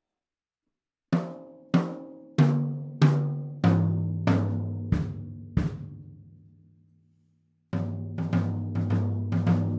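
Toms of a 1976 Ludwig stainless steel drum kit with clear black-dot heads, struck one at a time about every two-thirds of a second. The eight strokes step down in pitch from the smaller toms to the floor tom, and the last ones are left to ring out. Near the end a full-kit beat starts, with bass drum and quick strokes.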